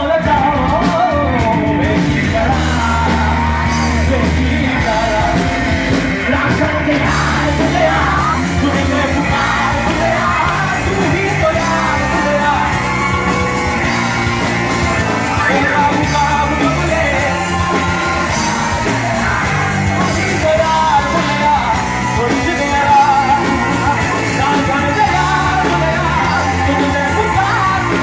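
Live rock band playing, with yelled vocals over the music.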